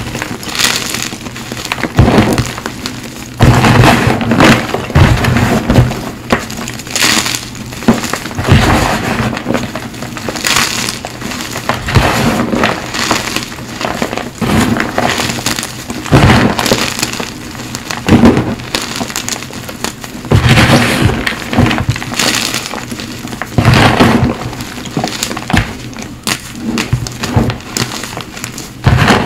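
Hands squeezing and crushing crumbled blocks of Cap gym chalk, crunching loudly in repeated squeezes about every one to two seconds.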